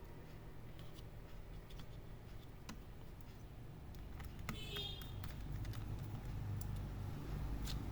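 HP 14s laptop cooling fan running after being cleaned and refitted, growing louder over the second half as it spins up, with light clicks and taps of handling. The fan spins properly after its service.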